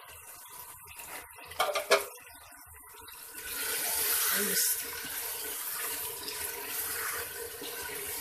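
Raw potato wedges dropping into a pot of hot oil and masala with a couple of knocks of the wooden spoon against the pot about two seconds in, then steady sizzling frying as they are stirred in.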